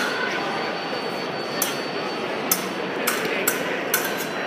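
Fencing blades clashing: about five sharp metallic clicks spread over three seconds, over the steady murmur of a crowded hall.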